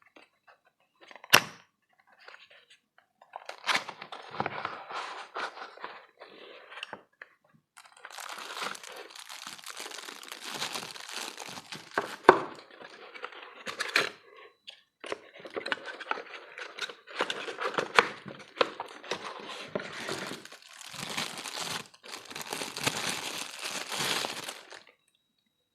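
Parcel packaging being torn open and crinkled by hand, a long run of rustling and tearing with a few sharp snaps.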